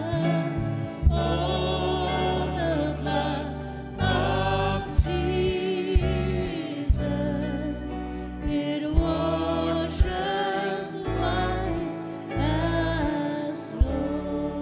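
Church worship team singing a slow gospel worship chorus together over acoustic guitar and keyboard, with occasional sharp low hits in the accompaniment.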